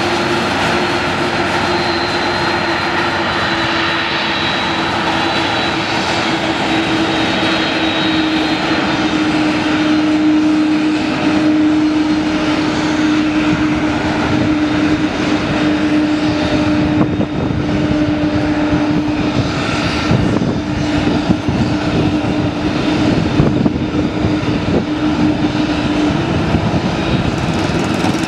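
McDonnell Douglas MD-11 trijet taxiing close by, its three turbofan engines running at taxi power: a steady jet whine over a low hum.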